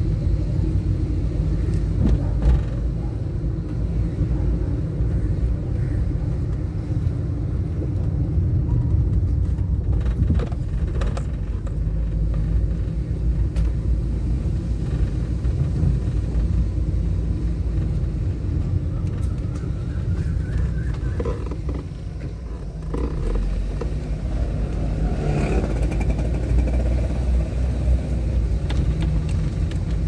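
Steady low road and engine rumble of a Nissan March (Micra) driving in traffic. A rising engine note comes in about twenty seconds in and again near the end.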